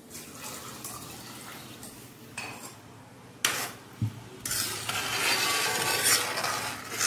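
Thin second-extract coconut milk poured from a bowl into a brass uruli of hot jaggery mixture, then a metal ladle stirring and scraping around the brass pan, with a few sharp clinks of metal on metal. The stirring gets louder about halfway through.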